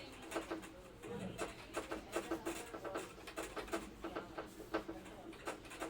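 Writing strokes, a quick irregular run of short scratchy ticks and scrapes, as when a pen writes notes.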